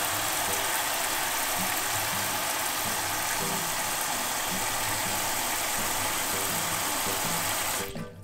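Kitchen faucet spray running a steady hiss of water onto salted napa cabbage leaves in a plastic bowl, rinsing off the salt; the tap is shut off near the end.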